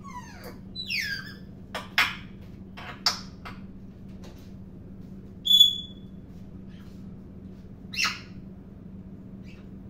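Pet parrot calling in short, scattered bursts: two falling whistles near the start, a few sharp clicks, a loud clear whistle about halfway through, and a short squawk about eight seconds in.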